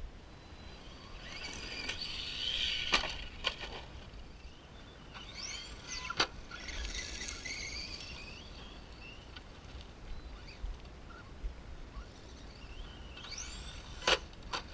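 Electric RC stunt truck on dirt: its motor whines up in pitch twice as it speeds into jumps, with sharp knocks from the truck hitting the ground about 3 s in, about 6 s in, and again near the end, as it lands a flip.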